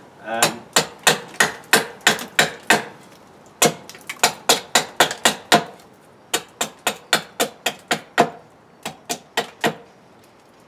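Gränsfors Bruks mini hatchet chopping a rough point onto the end of a small wooden billet to make a tent peg. Sharp blade strikes into the wood come about three a second, in four runs with short pauses between them.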